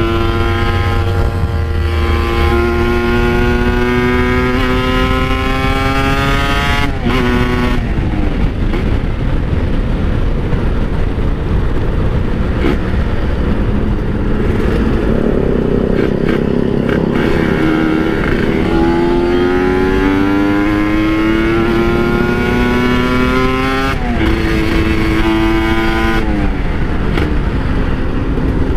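Kawasaki Ninja RR's two-stroke single-cylinder engine accelerating under way, its pitch climbing steadily and dropping sharply at each gear change, about seven seconds in and twice more near the end. In the middle the clear engine note gives way to a rougher, noisier stretch before it climbs again.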